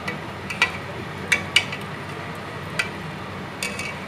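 Steel spoon clinking against the inside of an aluminium pressure cooker as the pressure-cooked beef is stirred, about eight irregular clinks with the loudest in the first two seconds, over a faint steady hum.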